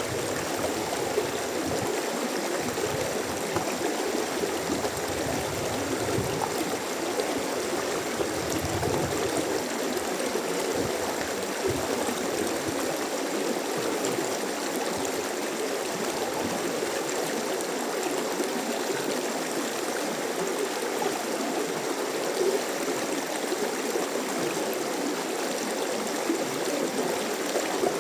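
Mountain stream flowing steadily over rocks, an even rush of water with gurgling.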